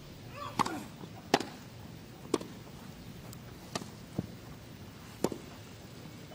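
Grass-court tennis: a serve is struck and a rally follows, with sharp racket-on-ball hits roughly every second and a softer knock between two of them.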